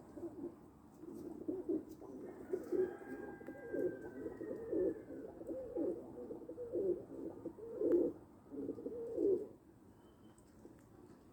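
Domestic pigeons cooing: a run of low, rolling coos repeated one after another, stopping near the end.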